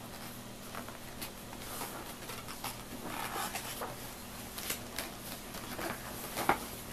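Soft rustling and scattered light taps of a picture book's paper pages being handled and turned, over a faint steady hum.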